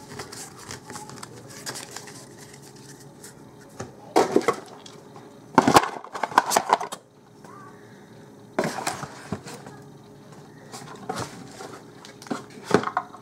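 Magic: The Gathering trading cards being gathered up and slid across a tabletop by hand: a few short bursts of scraping and tapping, the loudest cluster about midway through.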